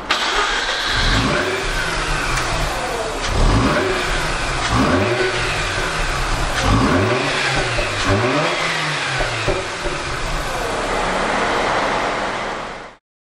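Mazda RX-8 Type S's 13B-MSP two-rotor rotary engine running through an aftermarket Autoexe titanium exhaust, revved several times in quick rising-and-falling blips, then held steady near the end before the sound cuts off suddenly.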